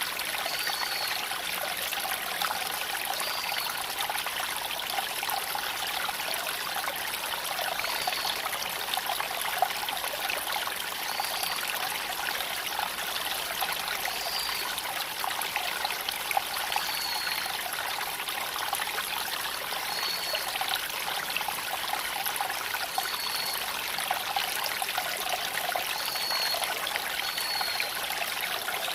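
A creek flowing and trickling over stones in a steady rush, with a bird giving a short high call about every two to three seconds. There are a couple of sharp pops, one near 10 seconds in and one near 16 seconds in.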